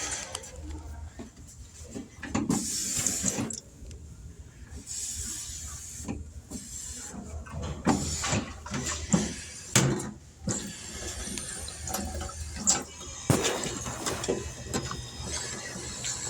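Drinking fountain water running in short spurts, among footsteps and scattered knocks and clicks.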